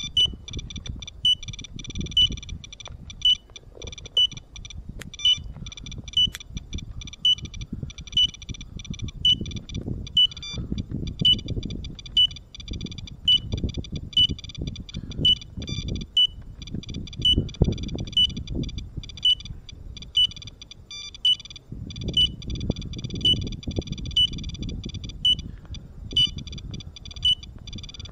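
Two Geiger counters, a SOEKS and a DP802i, clicking irregularly as they register radiation, which the SOEKS screen rates as a dangerous background. A high electronic beep repeats about once a second, over a low rumble.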